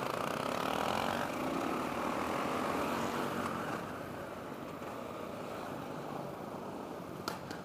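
Motorcycle engines running, fading slowly, with a short sharp click near the end.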